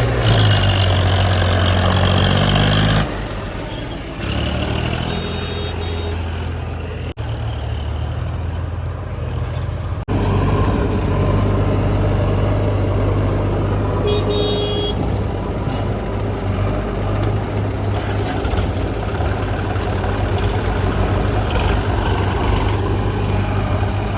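Heavy diesel machinery engine running steadily under work, with abrupt changes in sound about 3, 7 and 10 seconds in, and a short high-pitched beeping tone about halfway through.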